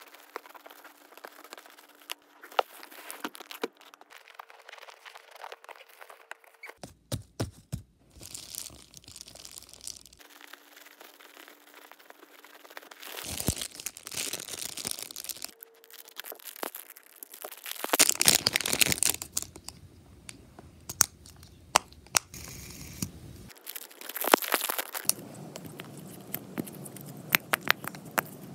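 Plastic packaging handled up close: scissors cut through a bubble mailer, and a clear plastic bag crinkles and tears, with many sharp clicks and crackles. Near the end come the popping clicks of a simple dimple fidget toy's silicone buttons being pressed.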